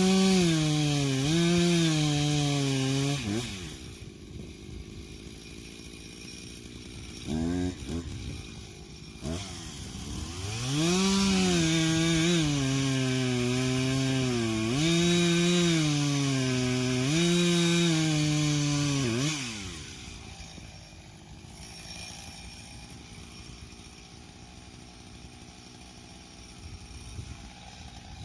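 Two-stroke chainsaw cutting wood at full throttle, its pitch sagging and recovering as the chain bites. It drops to idle after about three seconds and is briefly revved once. It then saws again at full throttle for about nine seconds with repeated dips in pitch, and falls back to idle.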